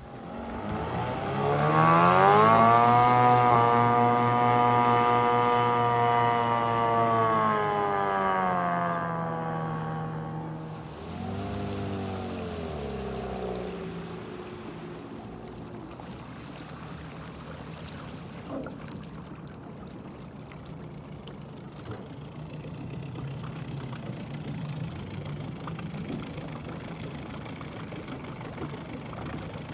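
Small outboard motor, fitted with a home-made modified lower unit and cleaver propeller, revving up hard about a second in and running at high speed with a steady whine, then easing off after about eight seconds. After a brief rev it runs lower and quieter, heard from the shore as the boat comes in.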